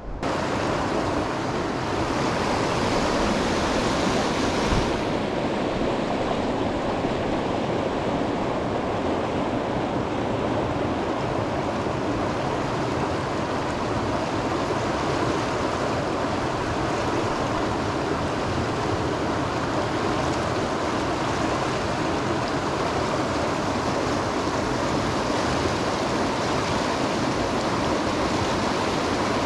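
River current rushing over rocks and boulders, a steady, even rush of flowing water.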